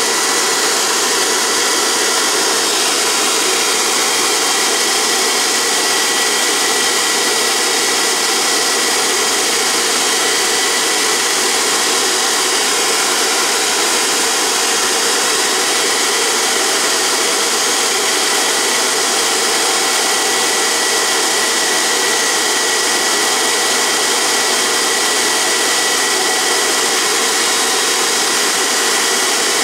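Dumore toolpost grinder's electric motor running steadily at speed, an even whirr with a thin high whistle, while its grinding wheel is dressed against a diamond nib.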